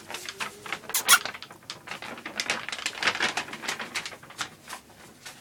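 Paper rustling and crinkling in a run of quick small crackles and taps as a cat chases and bats at it.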